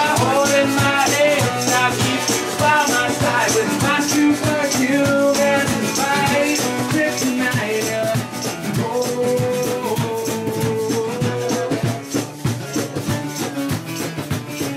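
Upbeat music with a shaker keeping a fast, steady beat under a melody.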